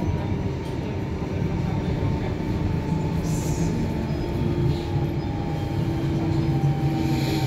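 Inside an Irish Rail 8520 class DART electric multiple unit running along the line: a steady rumble of the carriage and wheels on the rails, with a faint steady whine.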